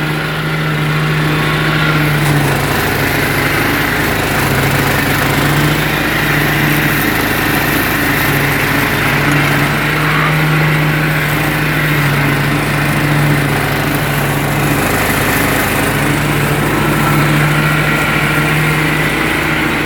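Zero-turn riding lawn mower's engine running steadily while mowing, its note wavering slightly in strength.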